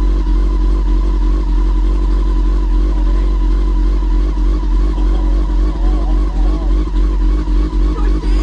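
2000 Yamaha R6 motorcycle's inline four-cylinder engine idling steadily.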